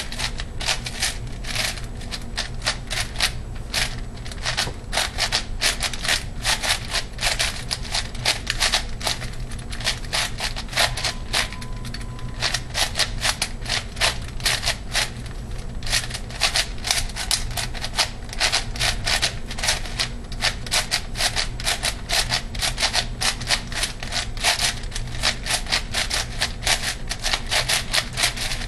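ShengShou 8x8x8 puzzle cube being turned fast by hand during a speedsolve: a rapid, irregular clatter of plastic layers clicking, with a few brief pauses.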